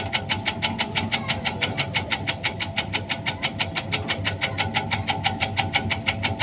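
Tobacco-cutting machine running, its steel blade striking in a steady rhythm of about five or six strokes a second over the hum of the small water-pump engine that drives it.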